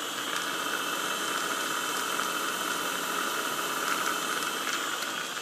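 The 3-horsepower head of a Proto-Trak K3 knee mill, its spindle running steadily in high gear at 2800 rpm: a smooth, even whir with a faint high whine, very quiet for a mill head.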